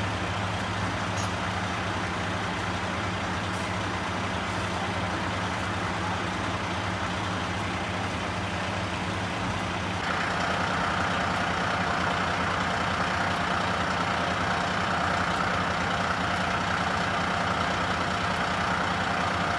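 Fire engine running steadily to drive its pump, drawing off floodwater, with a steady low engine hum under a rushing noise of water pouring from a discharge hose into a drain. About ten seconds in the drone gets a little louder, with a stronger higher-pitched hum.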